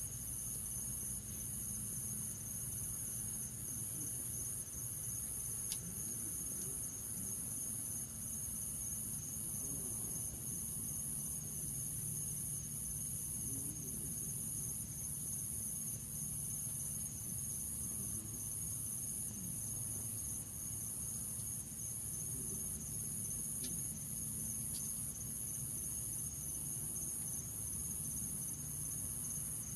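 A steady, high-pitched chorus of crickets trilling in an even pulsing rhythm over a low background rumble, with a few faint clicks.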